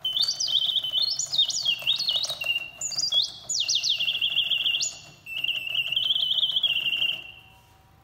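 Reuge two-bird singing automaton clock, started by its push button, whistling mechanical birdsong: rising chirps and quick warbling trills in three phrases with short pauses between them, over a faint whir of the mechanism. It stops about seven seconds in.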